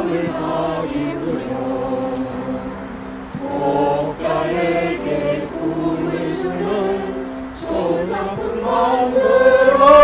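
A roomful of people singing the association's song together in unison, with a loud held note swelling near the end.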